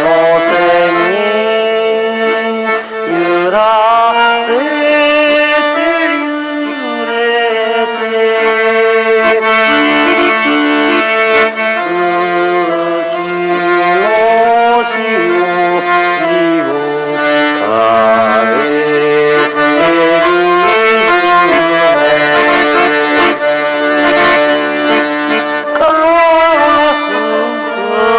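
Accordion playing a slow melody over sustained chords, the notes held and changing every second or two.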